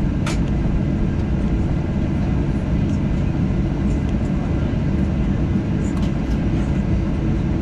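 Airliner cabin noise while taxiing: a steady low rumble of the engines and the rolling undercarriage, with one sharp click a moment in.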